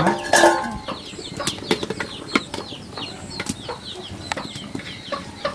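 Metal clinks and knocks as the lid comes off an aluminium rice pot and a ladle stirs the cooked rice, over a steady run of short, falling, high cheeps from chickens.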